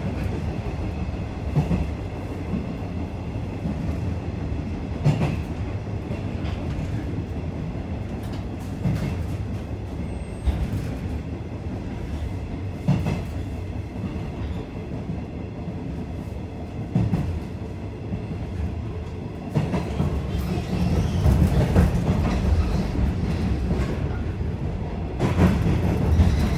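Interior sound of a JR 105 series electric train in motion, with a wheel flat pounding on the rail as the wheels turn, and louder knocks every few seconds. The running noise grows louder about two-thirds of the way through.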